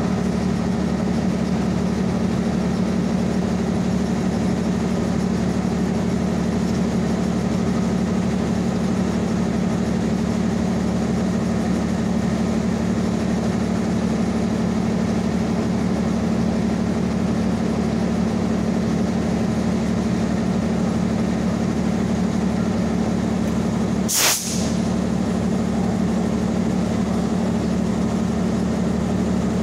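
Steady low hum and running noise of electric commuter trains at a station. About 24 seconds in there is one brief sharp hiss.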